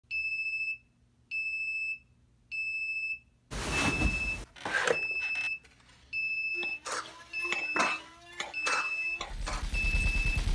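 Homemade Arduino alarm clock beeping: one high-pitched beep a little over a second apart, repeating steadily. From about three and a half seconds in, noise and several sharp clicks come in over the beeping as a Nerf blaster is fired at the clock, and near the end a louder dense noise takes over.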